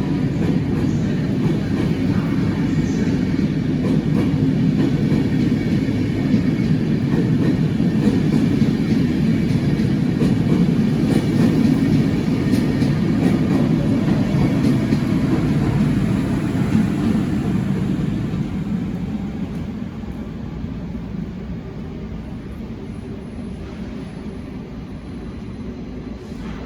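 A train running on the tracks with a steady low rumble that fades gradually over the last several seconds as it moves away.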